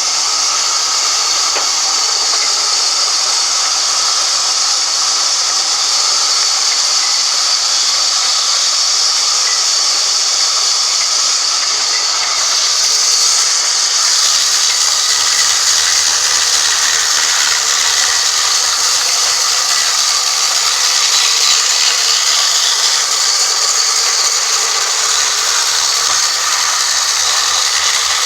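Band sawmill running through a log: a steady, loud, high-pitched hiss of the blade cutting wood, growing a little louder about halfway through.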